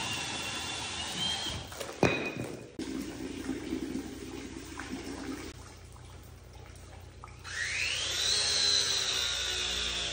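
Battery-powered pipe press tool crimping a MegaPress fitting onto 1½-inch steel hydronic pipe. There is a sharp click about two seconds in and a low hum for a few seconds after it. Later the tool's motor starts a whine that rises in pitch, then holds steady near the end while the jaw closes on the fitting.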